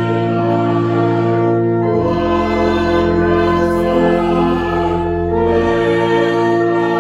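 Slow music of long held chords, changing about two seconds in and again near six seconds.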